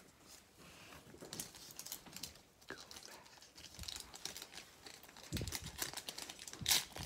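Panini Mega Cracks trading card pack wrapper crinkling and tearing as hands pull it open, the crackling starting about a second in and getting louder near the end.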